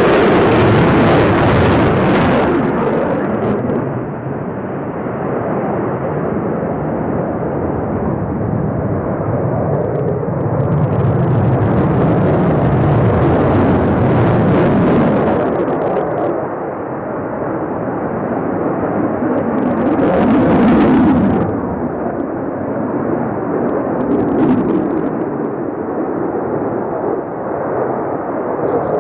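Sukhoi Su-35 fighter jet flying a display, the steady noise of its twin turbofan engines swelling and easing as it passes, loudest about twenty seconds in.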